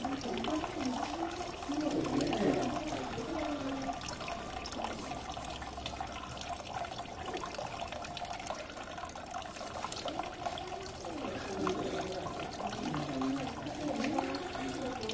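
Tap water running steadily into a steel sink.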